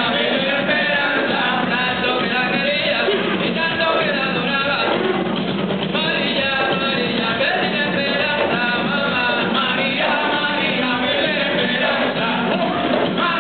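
Live Puerto Rican folk music: singing over hand drums and percussion, played steadily and loud.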